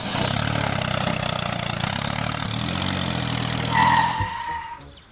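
Mini tractor engine running steadily with an even pulse. About four seconds in a brief higher tone sounds, and the engine then fades away.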